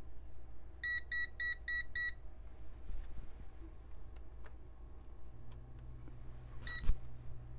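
Digital multimeter beeping: a quick run of five short, high beeps, then a single beep with a sharp click near the end as its buttons and range dial are worked.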